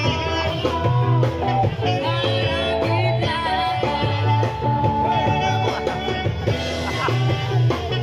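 Live rock band playing loud through PA speakers: electric guitar, bass guitar and drums, over a pulsing bass line.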